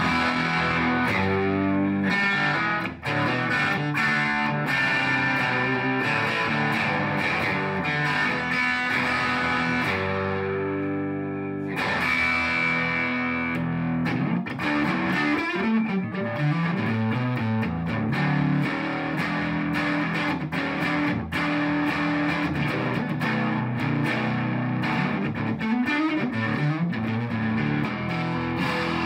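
1968 Gibson Les Paul Gold Top electric guitar played through an amp with distortion, being test-played: ringing held chords, then after a break about halfway, single-note lead lines with string bends.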